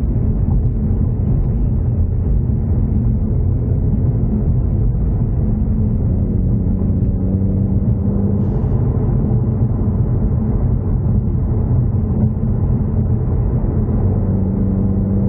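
Ford Mustang EcoBoost's turbocharged four-cylinder engine running while driving, under a steady rumble of road and wind noise. The engine note shifts slowly in pitch a few times as the speed changes.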